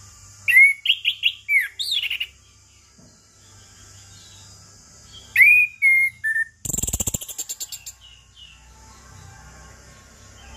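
Orange-headed thrush singing two short bursts of sweeping, whistled notes. The second burst ends in a brief harsh rattle. A steady high-pitched hiss runs underneath.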